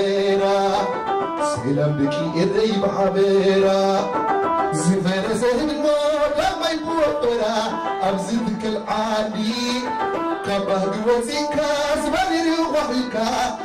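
Live Eritrean popular song: a man singing a melodic line over a band that includes a plucked krar (lyre).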